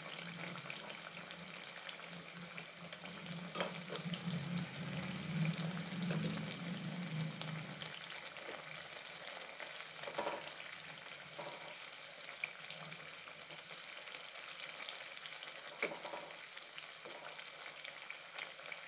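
Thekua deep-frying in oil in a steel kadhai: a steady sizzle of bubbling oil, with a few light knocks as a perforated slotted spoon turns the pieces. A low hum runs under it for the first several seconds.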